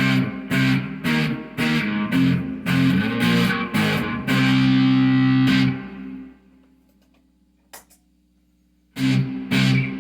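Electric guitar played through an amplifier and effects, a rhythmic chopped chord riff that ends on a held chord, which rings and fades away. After a pause of about two and a half seconds, with one small click, the riff starts again near the end.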